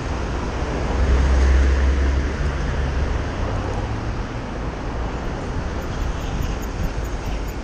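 Ambient city street traffic heard from a bicycle riding along the road: a steady wash of vehicle noise with a low rumble that swells briefly about a second in.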